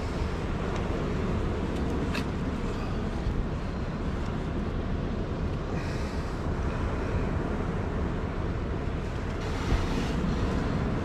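Steady low rumble of stormy wind buffeting the microphone, with surf breaking behind it. A few brief, faint rustles are heard in between.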